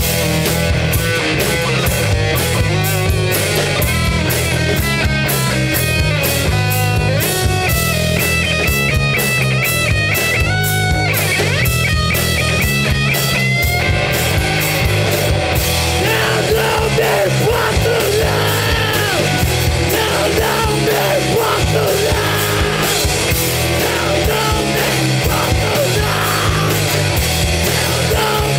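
Live grunge rock band playing: distorted electric guitars, bass and fast drums. A high, stepping lead-guitar line runs through the first half, and a shouted vocal comes in about halfway.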